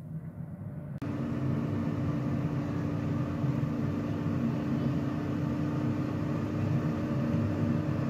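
Ambiano air fryer oven running while cooking: a steady fan whir with a constant hum, coming up to full strength about a second in.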